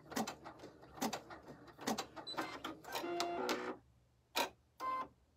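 Computerized embroidery machine stitching a tack-down line slowly, with single stitches about a second apart. Then a short run of stitches with a whir from the hoop carriage's motor, and the machine stops about two-thirds of the way through, leaving two brief clicks.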